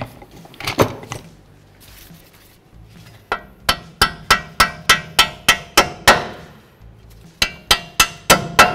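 Hammer striking the strut-to-steering-knuckle bolts to drive them out, sharp metal-on-metal blows with a ringing tone. A few knocks come about a second in, then a quick run of about ten strikes, about three a second, from about three seconds in, and five more near the end.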